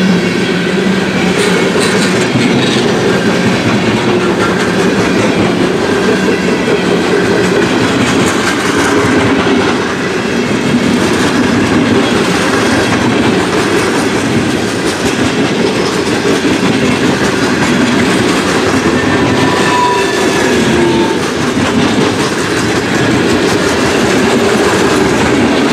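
Freight train cars rolling past close by, covered hoppers, then open cars and tank cars, in a steady loud rumble and rattle with wheels clicking over the rail joints. A brief squeal comes about twenty seconds in.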